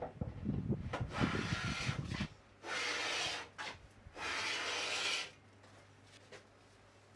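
A hand tool working wood: two long scraping strokes across a board, each about a second, after a couple of seconds of low knocks and handling.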